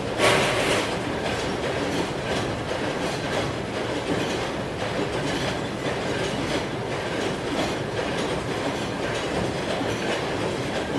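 Steady mechanical rumble with a rhythmic clatter of repeated knocks about twice a second, and one louder hit just after it begins.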